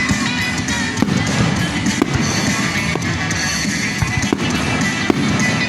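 Aerial fireworks popping and crackling, several sharp reports each second, over loud background music playing from a nearby speaker.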